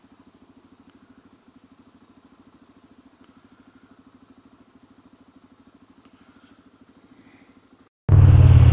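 Motorcycle engine idling with a quick, even beat. Near the end it cuts suddenly to the engine running much louder and closer.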